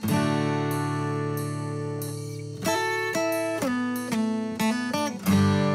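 Background acoustic guitar music: plucked notes and chords, each ringing out and fading before the next.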